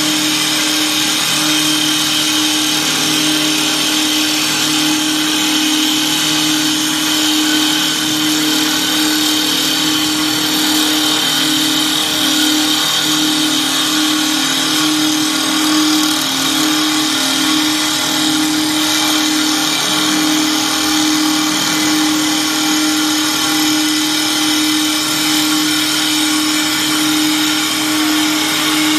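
WS-L1516 double-spindle CNC wood lathe turning two wooden balusters at once, its rotary cutter heads cutting into the spinning wood. It makes a steady, even machine drone, a constant hum over a hiss of cutting.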